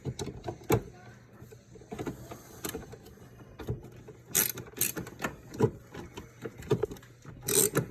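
Hand screwdriver ratcheting as a stripped screw is driven back into plastic: irregular runs of clicks, with a few louder clicks.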